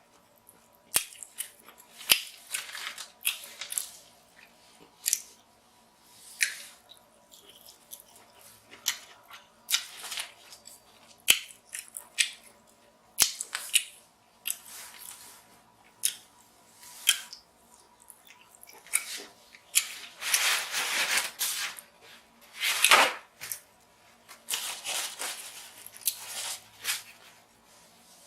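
King crab leg shells being snipped and cracked open with scissors, with chewing and lip-smacking in between: many short, sharp clicks and cracks at irregular intervals.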